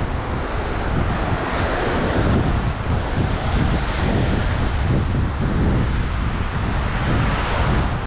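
Wind buffeting the microphone in a steady, gusty rumble over the hiss of surf breaking on a sandy beach.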